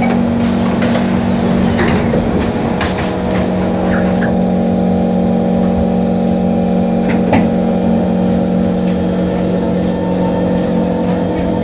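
MRT electric train carriage with its doors sliding shut, a few sharp clunks about two to three seconds in, then the train's steady electric hum as it starts to pull away from the platform, with a faint rising whine near the end.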